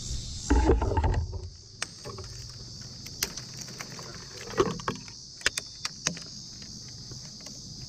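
Tree climber's gear and handling noise: a low rumble of rubbing or wind on the microphone about half a second in, then scattered sharp clicks and knocks like metal hardware clinking, over a steady high hiss.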